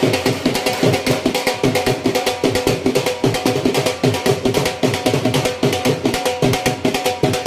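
Fast dance music with quick, driving drum beats and a steady melody held over them.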